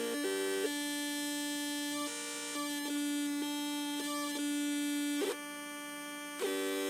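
Two Atari Punk Console circuits (556 timer square-wave synths) droning buzzy electronic tones through small computer speakers. One tone holds a steady pitch while the other jumps abruptly from pitch to pitch, dropping out briefly near the end.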